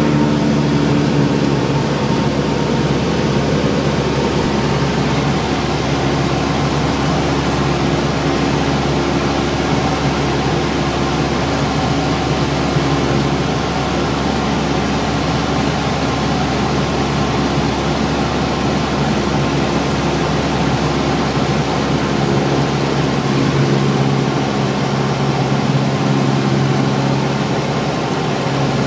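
Light aircraft's engine and propeller droning steadily, heard inside the cabin, with a wide rush of airflow noise. The low hum of the engine grows stronger again for the last few seconds.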